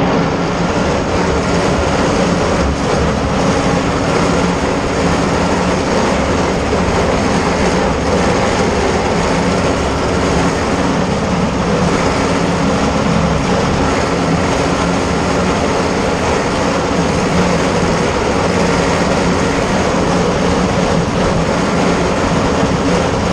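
Ursus tractor's diesel engine running steadily as the tractor drives across a field, heard from inside the cab.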